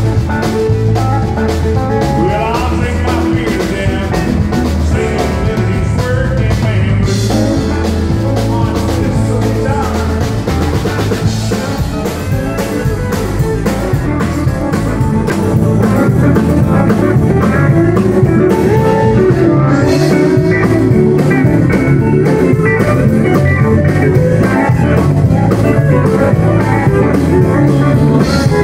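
Live country band playing an instrumental break, with electric guitar and pedal steel guitar leads over drums and bass. The band gets louder about halfway through.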